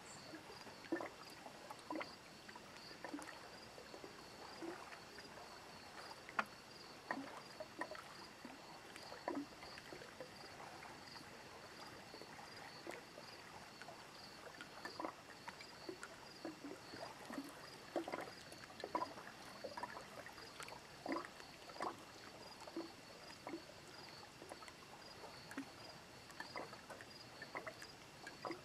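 Small lake waves lapping and slapping irregularly at the water's edge, in soft uneven splashes. Behind it, a faint high insect chirp repeats about twice a second.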